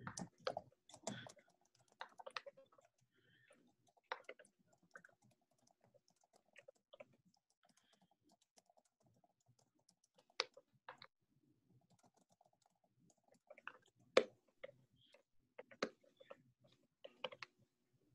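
Computer keyboard typing: scattered, irregular keystrokes in small clusters, a few louder than the rest, over a faint low hum.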